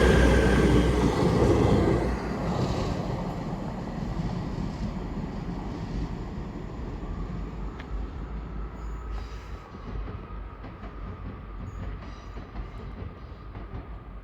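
Class 158 diesel multiple unit passing through the station at speed: loudest in the first two seconds, then its rumble fades away steadily as it recedes.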